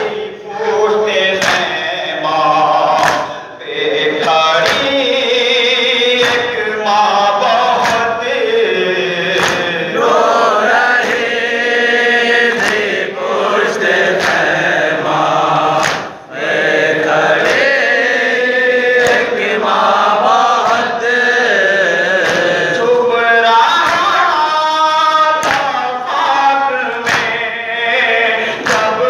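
Male voices chanting a noha lament, a reciter at the microphone with the crowd chanting along, over matam: hands slapping chests in unison about once a second.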